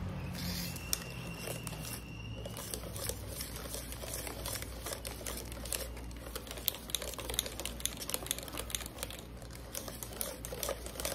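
A kitchen utensil clicking and tapping against a mixing bowl as cake batter is mixed by hand, in quick, irregular ticks over a low steady hum.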